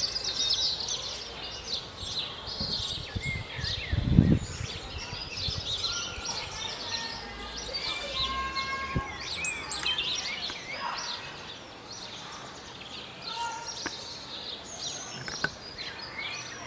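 Many birds chirping and calling at once in a dense outdoor chorus, with a few short whistled notes about eight seconds in. A single low thud about four seconds in.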